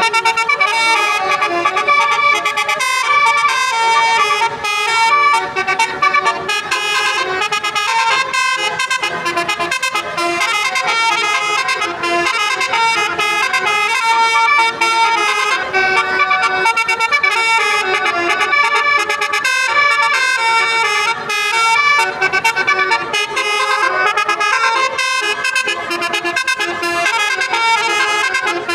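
Basuri telolet horn on a tour bus, a multi-trumpet musical air horn, playing a fast melody of many short notes that step up and down without a pause.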